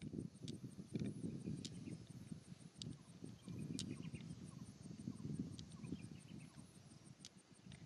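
Cricket chirping steadily as an even train of high pulses, over a low, uneven rumbling noise with a few sharp clicks.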